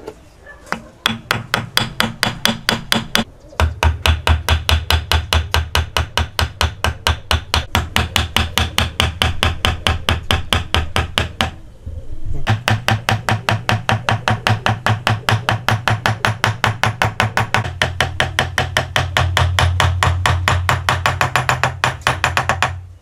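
Rapid, even hammer blows on wood, about five a second, in two long runs with a short pause near the middle.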